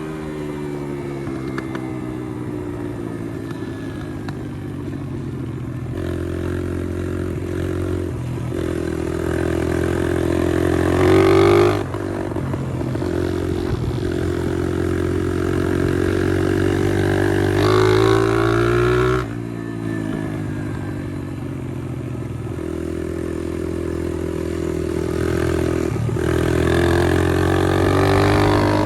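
Pit bike's single-cylinder engine under way, the revs climbing steadily for several seconds and then dropping sharply as the throttle is closed, about twice, then climbing again.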